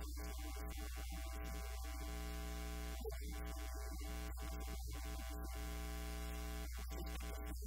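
Steady electrical mains hum and buzz on a poor audio feed: a strong low drone with a stack of steady higher tones above it, broken by brief dropouts, and no speech coming through.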